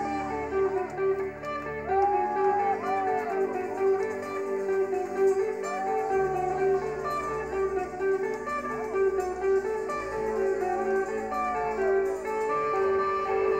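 Rock band music: an electric guitar plays lead lines with notes bent up and down, over sustained keyboard chords and bass.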